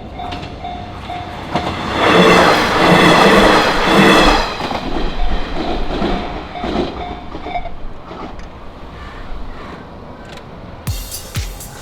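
Japanese level-crossing alarm bell ringing in a steady run of repeated dings while a Hachiko Line diesel train passes, loudest about two to four seconds in. The wheels then clack over the rail joints, and the bell stops about eight seconds in. Music starts near the end.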